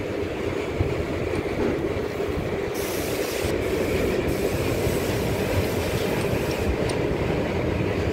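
Steady low rumbling background noise, joined by a hiss for about four seconds in the middle.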